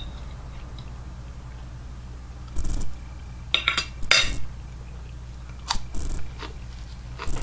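A person biting and chewing crunchy food close to the microphone: a handful of short crunching bursts from a few seconds in, over a low steady hum.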